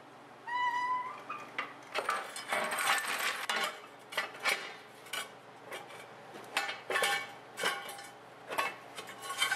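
Metal parts clanking and clinking in a run of sharp knocks, with a short rising squeak about half a second in.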